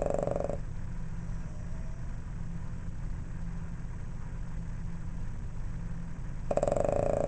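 Boston terrier snoring in sleep: a rattling snore dies away about half a second in, and another starts near the end, with a steady low rumble between them.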